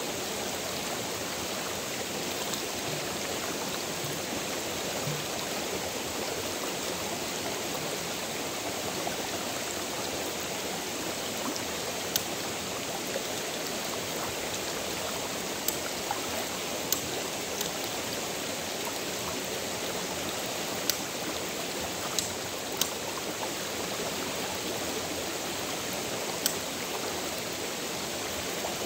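Steady rush of a flowing stream, with a few short, sharp clicks scattered through the second half.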